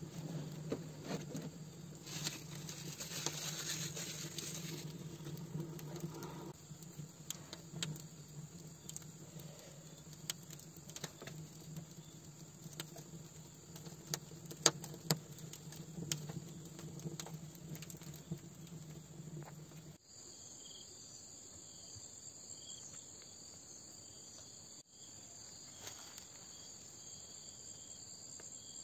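Wood fire of dry sticks and stalks crackling, with scattered sharp pops over a steady low hum. About twenty seconds in this gives way to a steady, high-pitched chorus of insects.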